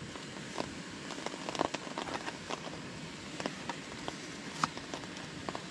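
Steady rain falling, an even hiss with scattered sharper drops ticking at irregular moments close by.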